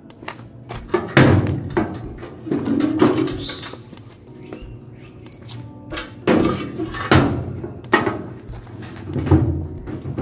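Steel hand truck loaded with a sheet-metal appliance being tipped back and wheeled over concrete: irregular clunks and rattles, heaviest about a second in and again around six to seven seconds in.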